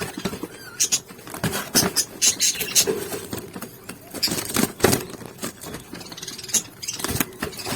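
Parrot chicks chirping and squeaking in short, rapid, irregular calls, over a faint steady hum.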